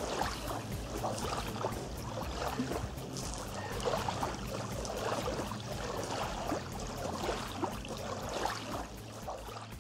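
Small waves lapping and splashing irregularly against a gravel lakeshore and a wooden boathouse wall, with soft music underneath.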